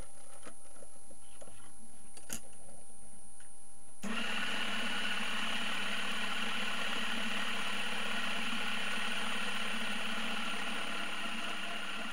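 A few light metal clicks as a drill bit is fitted into a lathe chuck, then about four seconds in a small belt-driven lathe switches on and runs steadily, spinning the chuck.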